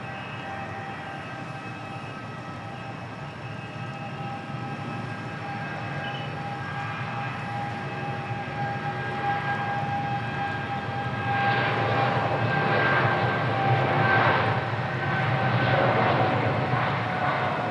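Jet airliner engines: a steady whine over a low rumble, growing louder through the second half and easing slightly near the end.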